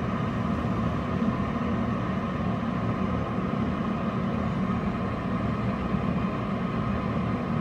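Running gas furnace's flue exhaust blowing steadily from its outdoor vent, driven by the inducer fan, with a constant hum.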